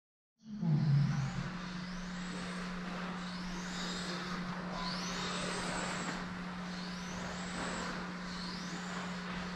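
Xray X4 1/10 electric touring car with a 21.5-turn brushless motor running practice laps: a motor whine rises in pitch each time the car accelerates, about every second or two, over a steady low hum.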